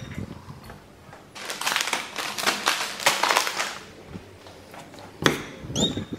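Brown paper shopping bag crinkling and rustling as it is carried and handled, a dense crackle for a couple of seconds, with a sharp knock about five seconds in.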